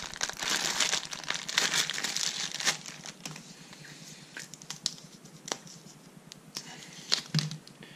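Clear plastic packaging crinkling as a white cable is pulled out and unwound. The crinkling is dense for the first three seconds, then thins to scattered small rustles and clicks.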